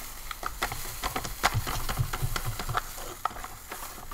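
Grape electrolyte beverage powder pouring from a foil MRE pouch into a canteen cup of water, with a hiss and many small crackles as the pouch is shaken and crinkles.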